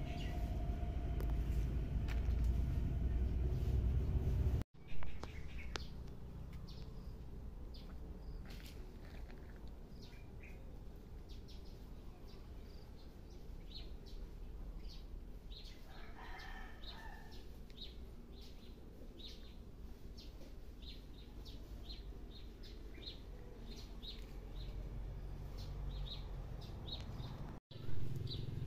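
Small birds chirping repeatedly in short high notes, with a rooster crowing once around the middle and starting again near the end. A low rumble fills the first few seconds.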